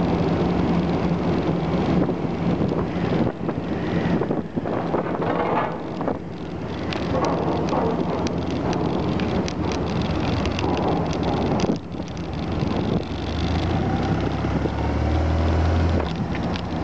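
Engine and vehicle noise during disembarkation from a car ferry: a loud, steady low drone with scattered clicks and clatter, and a deeper engine hum swelling near the end.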